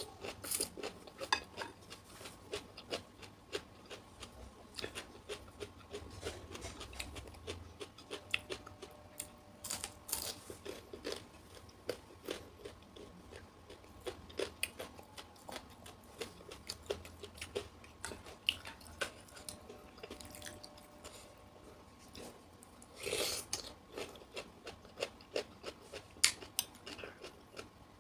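Close-up chewing and crunching of asinan betawi: raw vegetables and fruit such as jicama, cucumber and carrot, in rapid crisp crunches, with a few louder mouthfuls along the way.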